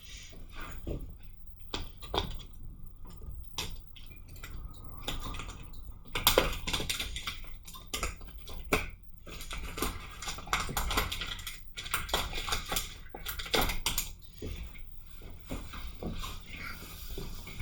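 Irregular light clicks and taps of small tools and parts being handled on a repair bench, busiest about six to fourteen seconds in.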